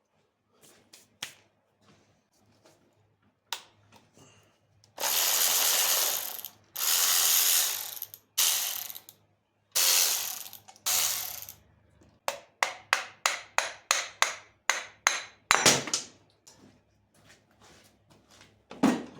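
Hand ratchet wrench working a fastener off: several runs of fast, continuous ratcheting, each about a second long, then a quick series of separate ratchet clicks, about three a second.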